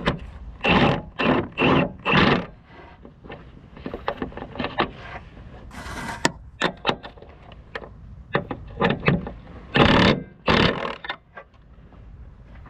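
Metal tool work on a nut on top of the gearbox: a deep socket on a long bar scrapes and clanks in a series of short strokes, with scattered clicks between them.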